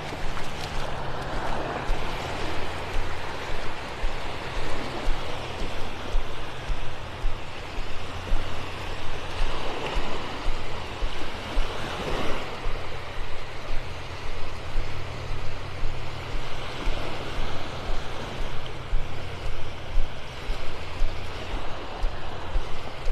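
Feet wading through shallow seawater, sloshing and splashing at a steady walking pace of about two steps a second, over the wash of the shallows.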